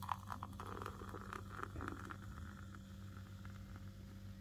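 Pilsner beer poured from an aluminium can into a glass: splashing and glugging with fizzing foam, busiest in the first two seconds, then settling to a quieter stream.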